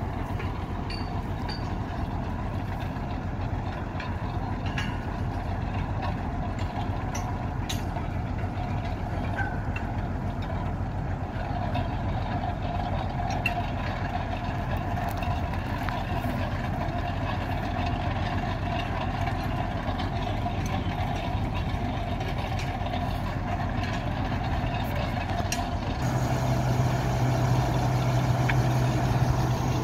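Engine of a truck-mounted water-well drilling rig running steadily, with a few faint clicks. Near the end the hum gets louder and deeper.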